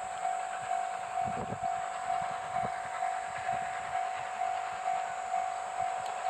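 Japanese level-crossing warning bell ringing steadily, about two strikes a second, over a steady hiss from the approaching C57 steam locomotive.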